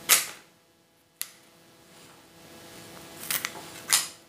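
Florist's scissors snipping a dahlia stem and leaves: several short, sharp snips spread over a few seconds, the loudest at the start and near the end.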